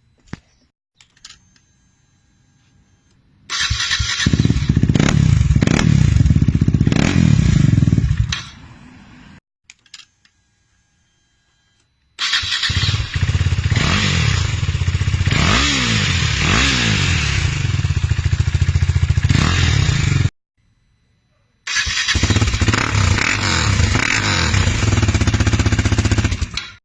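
KTM 390 Duke's single-cylinder engine heard through its exhaust in three separate takes, each cut off abruptly. It idles loudly, with quick throttle blips that rise and fall in pitch in the middle take.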